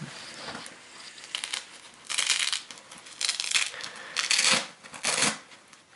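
Hook-and-loop (Velcro) fastener on the knee pocket of camouflage trousers being pulled apart, four short rasping rips with fabric rustling between them.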